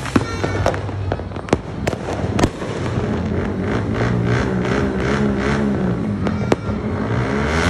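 New Year aerial fireworks exploding: a quick run of sharp bangs and crackles in the first two and a half seconds, then a single bang about six and a half seconds in. About three seconds in, a steady wavering drone swells up behind the bangs.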